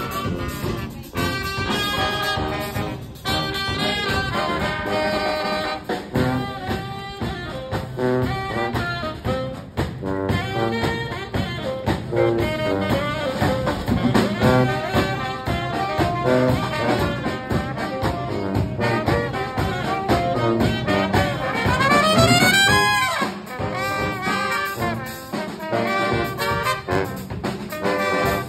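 Live brass band with trumpets and saxophones playing a jazzy tune over drums, with a quick upward run of notes a little past three-quarters of the way through.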